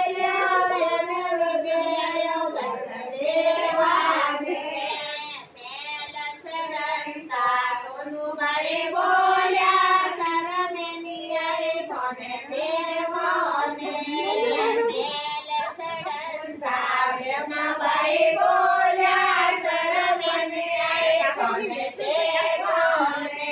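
A group of women singing a song together in one melodic line, in long held notes with short pauses between phrases.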